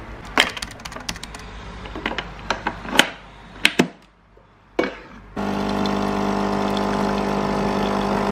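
Capsule coffee machine, a Nescafé Dolce Gusto, brewing into a travel mug: its pump buzzes loud and steady from about five seconds in, then cuts off suddenly. Before that come scattered clicks and knocks from handling the machine and capsule.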